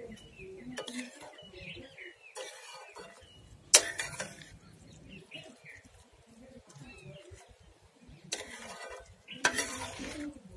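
Spoon stirring and scraping in a bowl, clinking against the sides in a series of short knocks, the loudest nearly four seconds in.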